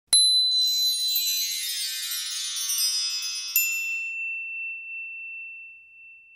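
Sparkling chime sound effect for an animated logo: a bright ding sets off a shimmering cascade of high tinkling tones. A second ding about three and a half seconds in leaves one high note ringing and slowly fading away.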